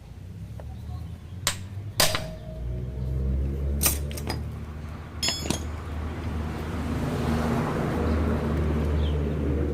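Several sharp metal knocks and clinks, a hammer striking a hand impact driver on tight engine-case screws and tools being set down, over a low steady mechanical hum that grows louder in the second half.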